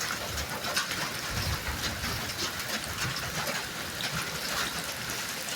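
Steady rain falling and pattering on surfaces, an even hiss with faint scattered ticks.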